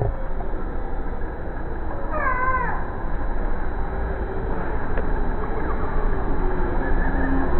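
Steady outdoor background noise, with one short wavering, pitched call about two seconds in.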